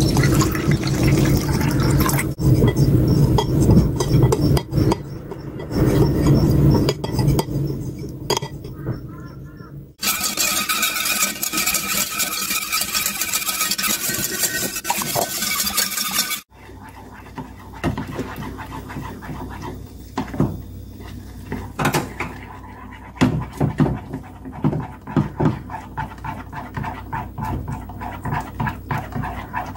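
Water pouring from a jug into a glass bowl, then glutinous rice flour paste being stirred in a metal pot. In the second half a wooden spatula stirs and scrapes the thickening paste against the pot with many quick knocks.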